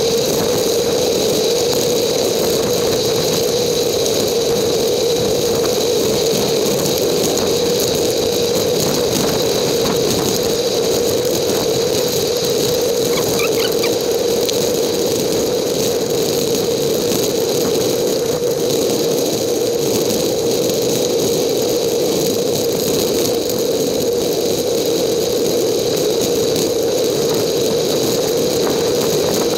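Steady droning ride noise from a bicycle on a dirt road, tyre and wind noise picked up by the GoPro camera, with a few faint rattles.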